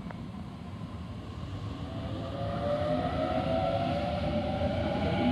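Sydney Trains Waratah (A set) electric train pulling away from the platform over a steady rumble of wheels on rail. About two seconds in, the traction motors start a whine that rises in pitch and grows louder as the train accelerates.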